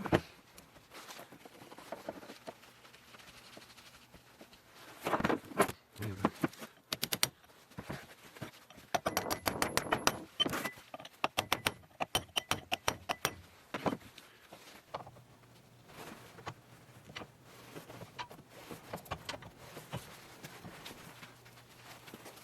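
Metal hand tools clinking and clicking on hydraulic cylinder and valve fittings, in scattered sharp strikes. A run of quick, even clicks comes about nine to thirteen seconds in.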